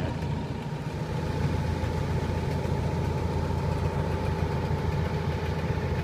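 Farm tractor's diesel engine running steadily with a low, even hum and a thin steady tone above it.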